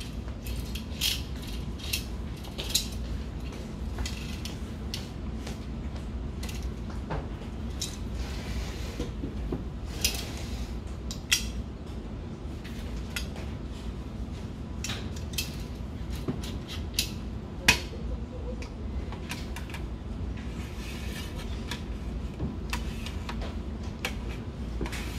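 Irregular metal clicks and clinks of a steel ball-bearing drawer slide rail being handled and fitted against a steel rack-mount chassis, with a few brief sliding rasps; the sharpest click comes about three quarters of the way through. A steady low hum lies underneath.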